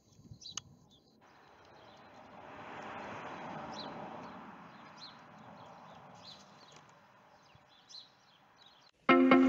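Outdoor street ambience: small birds chirping in short scattered calls, while a rush of passing traffic swells over a couple of seconds and fades away. Loud music cuts in near the end.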